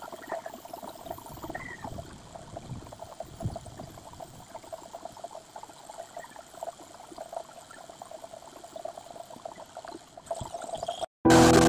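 Air spray gun hissing unevenly as it sprays paint. It cuts off near the end, where music starts.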